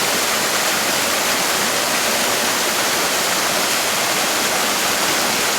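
Waterfall pouring down close by: a steady, loud rush of falling water.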